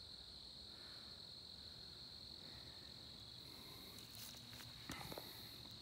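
Faint, steady high-pitched chorus of crickets chirping in the woods, with a few soft clicks near the end.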